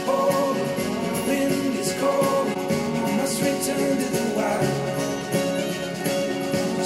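A song with singing and guitar, played through bookshelf hi-fi speakers and picked up by microphones in the room. Partway through, playback switches from Q Acoustics 3030i passive speakers driven by a Denon PMA-600NE amplifier to Edifier S2000MKIII active speakers.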